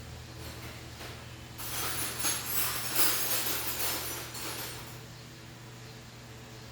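Metal hand tools clinking and rattling against each other for about three seconds, starting a second or so in, over a steady low hum.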